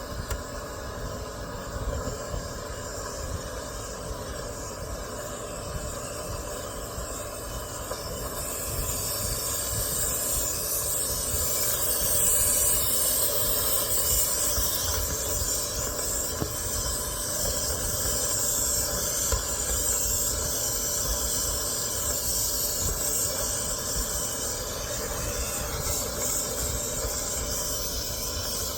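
Compressed air hissing out of a reverse sweep hose being worked through a dryer vent duct to blow the lint back toward the opening, getting louder about eight seconds in, over a low rumble.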